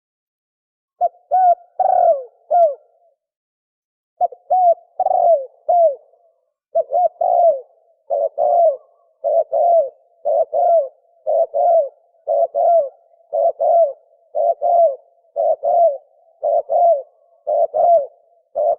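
Spotted dove cooing very fast: short phrases of a few coo notes, each rising and then falling. After a brief pause near the start they repeat about once a second.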